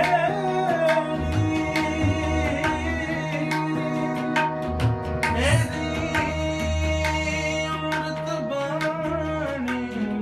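Tabla playing a steady rhythm with deep bass strokes from the bayan, over harmonium chords held steady. A voice sustains and slides between notes in kirtan style.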